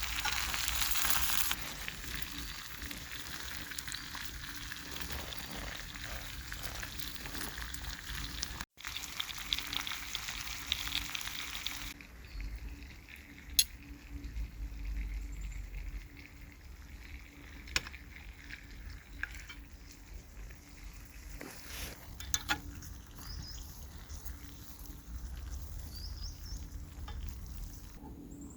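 Steak frying in garlic butter in a cast iron skillet over a campfire, a heavy steady sizzle. About twelve seconds in the sizzle drops much quieter, with a few sharp clicks after that.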